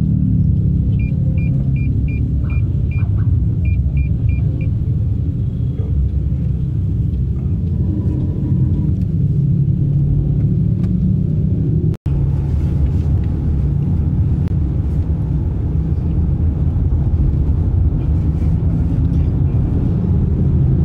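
Steady low road and engine noise heard from inside a moving car's cabin. About a second in there are two quick runs of short high beeps. About twelve seconds in the sound drops out for an instant.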